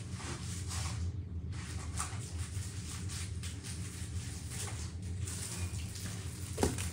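Steady low hum under an even hiss of room noise, with a brief louder rustle near the end.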